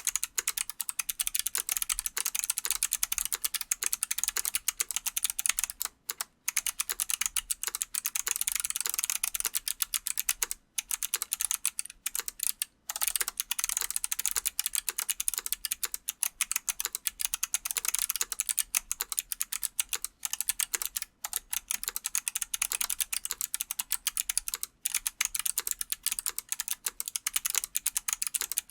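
Fast, continuous typing on a Godspeed75 mechanical keyboard with Kailh Box Jade clicky switches and GMK keycaps: a dense run of sharp key clicks, broken by a few brief pauses.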